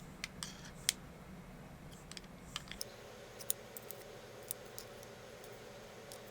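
Sparse, irregular light clicks of a computer mouse and keyboard, a dozen or so, over a faint steady hum.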